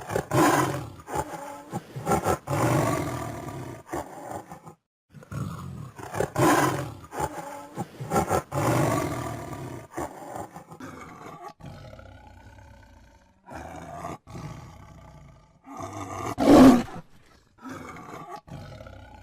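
Tiger roaring, a series of separate roars one after another with short pauses between them; the loudest comes near the end.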